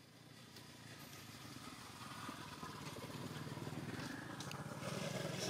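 Engine of a motor vehicle running and growing steadily louder as it approaches, with a few light clicks near the end.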